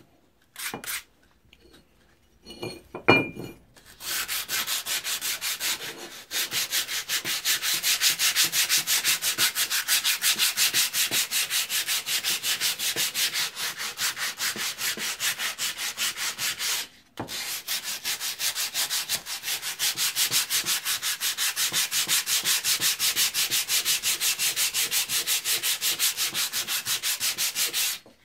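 Sandpaper rubbed by hand over the rusty, pitted steel face of an old axe head in fast, even back-and-forth strokes. After a few quiet seconds and a short knock with a faint ring, the sanding starts, breaks off briefly about two-thirds of the way through, and stops near the end.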